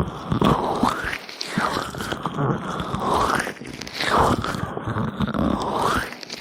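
Gloved hands rubbing oil over microphone ears: slick, close-up rubbing and squishing, with a sweeping swish from each stroke about once a second.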